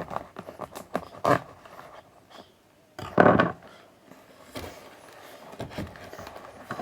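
Rustling, clicks and knocks of a mail package of comics being handled and opened by hand, with a louder scraping burst about three seconds in.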